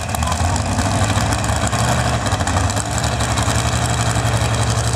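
Pulling pickup truck's engine running steadily at idle, a loud, even low engine note with no revving.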